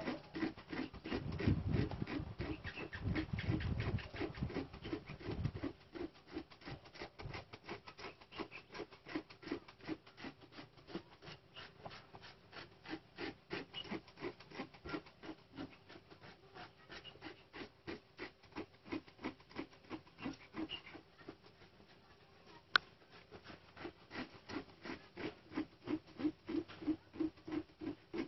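Rhythmic rasping of a hand rasp scuffing a rubber motorcycle inner tube, several quick strokes a second, roughening the rubber so a patch will stick. A deeper rumble sits under the first few seconds, and there is one sharp click near the end.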